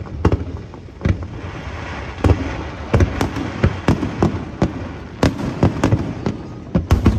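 Aerial fireworks shells bursting in quick, irregular succession: a string of sharp bangs, some in close pairs, over a continuous low rumble.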